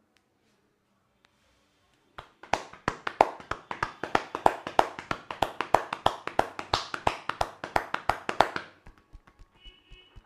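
Hands striking a person's head in quick, even percussive massage strokes, about six a second. They start about two seconds in and drop to softer taps near the end.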